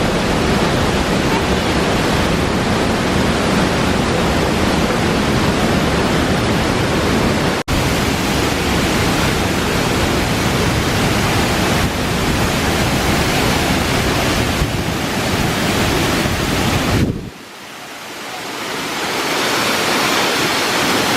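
Mahua waterfall: a loud, steady rush of falling water. It cuts out for an instant about eight seconds in. Near the end the deep part of the rush drops away and the sound falls quieter, then builds back up.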